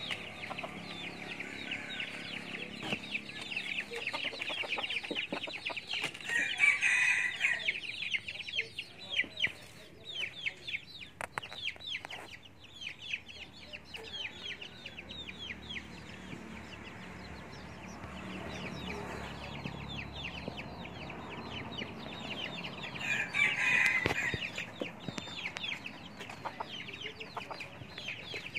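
Wild chicken rooster (junglefowl) crowing twice, once about a quarter of the way in and again about four-fifths through, with clucking between. A dense, fast ticking chatter runs underneath through the first half.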